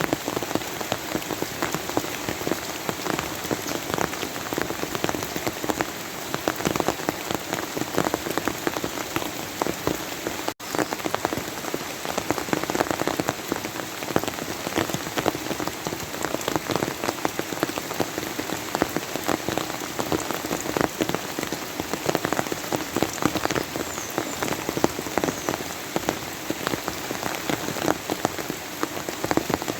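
Steady rain falling, a dense patter of many individual drop hits. About ten seconds in it cuts out for a split second, as if at a splice, then carries on the same.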